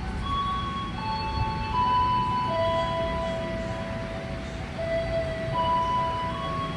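Railway level-crossing warning alarm playing a slow electronic tune of long held notes that step up and down in pitch, over a low rumble.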